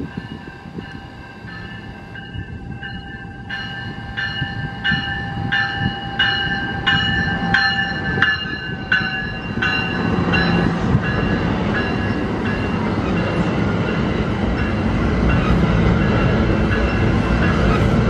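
A railway bell ringing at an even pace, about one and a half strokes a second. After about ten seconds it is drowned out by the rumble of a train that grows steadily louder as it passes close by.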